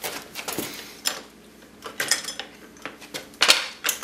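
Hydraulic floor jack being pumped by its handle to raise a car: a series of uneven metallic clanks and creaks from the handle and pump mechanism.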